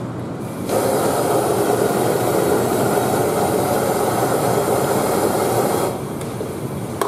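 Handheld gas blowtorch flame burning with a steady hissing rush while singeing animal legs. It gets much louder under a second in and falls back to a quieter rush near the end.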